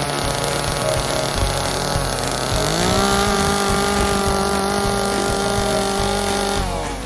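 Small chainsaw running low, then throttled up about two and a half seconds in, held at a steady high pitch for about four seconds, and let back down near the end.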